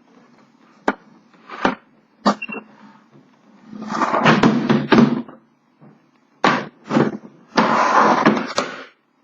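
The carrying case of a 1957 Remington Quiet-Riter typewriter being handled: sharp clicks and knocks, its latches and shell, with two longer stretches of scraping and rubbing as the case is moved and turned.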